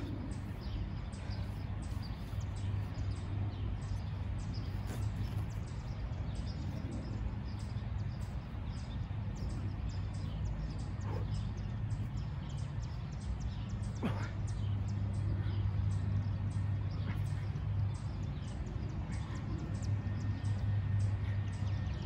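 Outdoor ambience: a steady low hum with faint bird chirps, and one short click about two-thirds of the way through.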